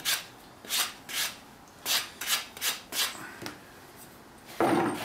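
Cut end of a half-inch copper pipe being smoothed with quick back-and-forth abrasive strokes, about two or three a second, taking off the sharp edge. Near the end comes one louder scrape or knock.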